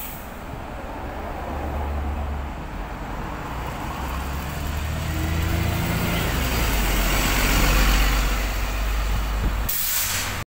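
A VDL SB200 Wright Pulsar 2 single-deck bus pulling away from a stop close by, its engine note building and growing louder as it accelerates, with a rising whine over it. The sound changes abruptly near the end.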